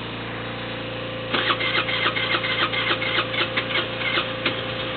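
A 50cc moped's engine, cold after five months of sitting, being started: an uneven run of sharp pulses for about three seconds starting a second in, running rough. Under it a second moped's engine idles steadily.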